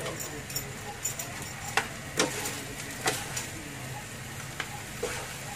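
A wooden spatula stirs and tosses fried rice vermicelli in a nonstick wok, knocking and scraping against the pan irregularly, about once a second, over a faint steady sizzle.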